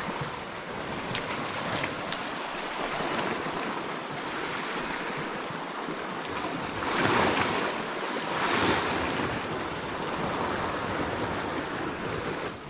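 Sea waves washing onto the shore, with wind buffeting the microphone; two louder waves break and wash in a little past the middle.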